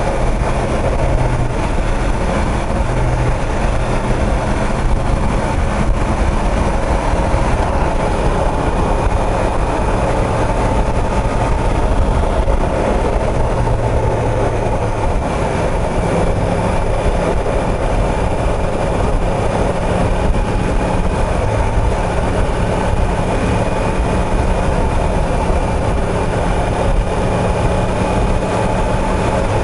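Yamaha YZF-R1M's crossplane inline-four engine running steadily at road speed, mixed with heavy wind and road noise. The engine note shifts pitch about halfway through.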